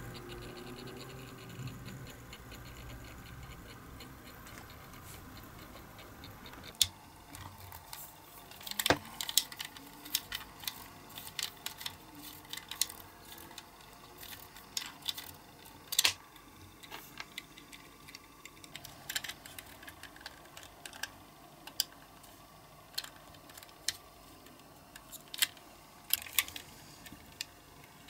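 A faint steady hum for the first several seconds. Then irregular sharp clicks, taps and scrapes as small hand tools work on a diecast toy car's metal body and wheels while it is handled and taken apart by hand.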